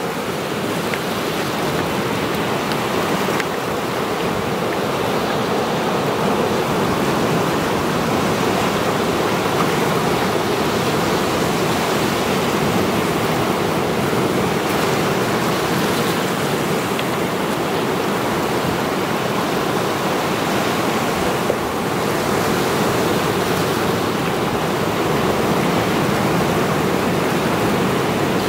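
Sea waves breaking and washing over a rocky shore: a steady, continuous rush of churning surf and foam.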